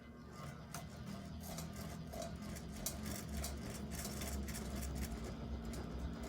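Early-1900s Westinghouse Deluxe ceiling fan motor running on a speed control: a steady low hum that grows louder about half a second in, with scattered light ticks.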